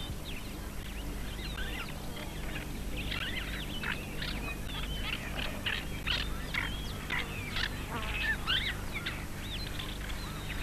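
Many birds chirping and calling in a dense, overlapping chorus of short high notes, thickest through the middle, over a steady low hum.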